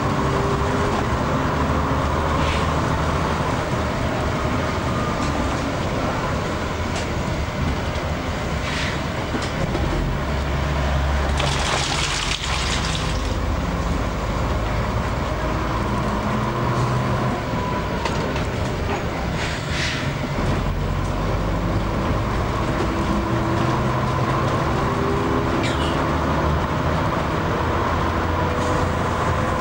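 Bus engine running as the bus drives along, heard from inside the bus, its note rising and falling with speed and gear changes, with rattles from the body. There is a brief hiss about twelve seconds in.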